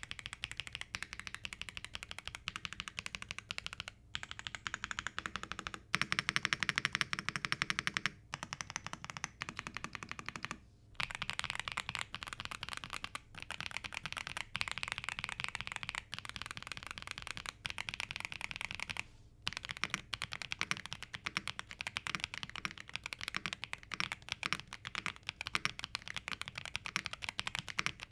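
Fast typing on a YUNZII AL75 aluminium 75% mechanical keyboard, a dense run of key strokes broken by a few brief pauses. With its switch pads and plastic film removed, it sounds thinner, a little muted and clacky rather than thocky.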